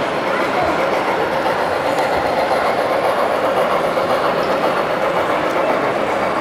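Model train running along the layout's track as its tank wagon and carriages pass close by: a steady rolling clatter of wheels on rail that grows a little louder about half a second in.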